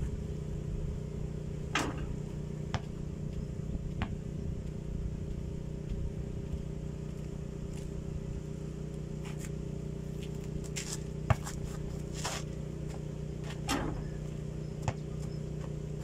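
A basketball bouncing and being handled on a hard-packed dirt court, with shoes scuffing on the ground: scattered short knocks, one sharp knock about two-thirds of the way through. A steady low motor hum runs underneath.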